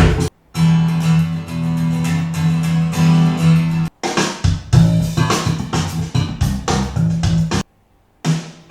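Sonos Era 300 speaker playing a guitar- and bass-led music track. The music drops to silence briefly three times: just after it begins, about four seconds in, and near the end.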